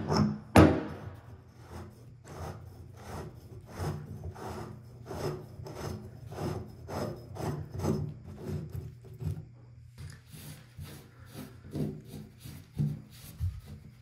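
A sharp metallic clack just under a second in, then repeated short scraping and rubbing strokes, about one to two a second: an old bathtub drain flange being turned out by hand, grating over its crusted putty and threads, and the opening then wiped with a cloth.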